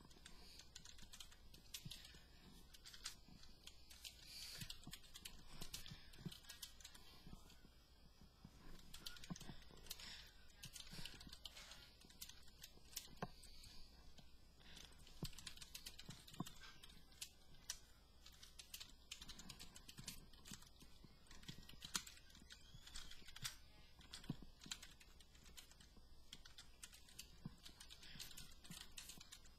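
Faint, irregular key clicks of someone typing on a computer keyboard, with a steady low hum underneath.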